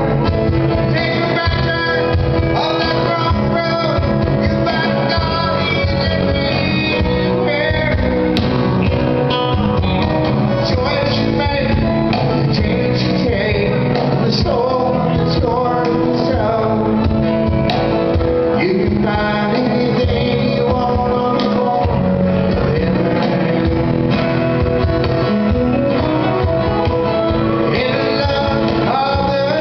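Live country-rock band playing, with electric bass and acoustic guitar and a man singing.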